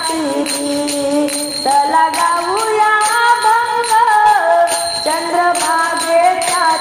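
Marathi devotional bhajan music: a melody line of held, gliding notes over a steady beat of jingling percussion.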